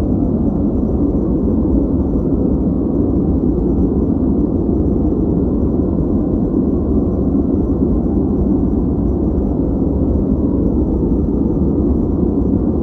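Steady, unchanging noise played as a focus background, deep and muffled rather than bright, with almost nothing in the upper range: white noise filtered toward a low rushing hiss.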